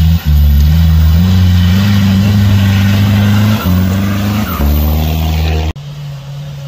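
Off-road 4x4's engine revving hard on a loose-stone climb, its note stepping up and down with a few brief dips. Near the end it cuts suddenly to a quieter, lower, steady engine note.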